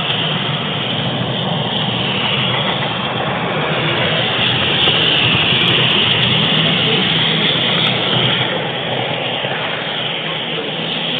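Running noise of an N scale model train picked up by a camera riding on it: a steady hiss and rumble of small wheels on the track and the locomotive's motor, a little louder around the middle.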